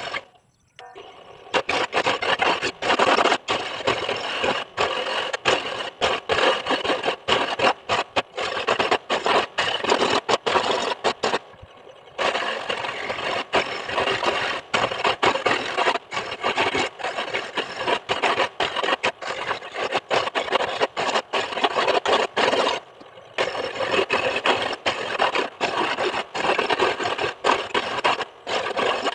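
A coconut half scraped hard and fast against a coconut grater, shredding the white meat in rapid, repeated rasping strokes. The strokes break off briefly about a second in, near the middle, and again about two-thirds of the way through.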